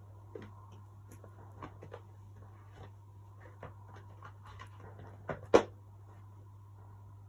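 Scattered light clicks and taps of a deck of oracle cards being handled, with one sharper knock about five and a half seconds in, over a steady low electrical hum.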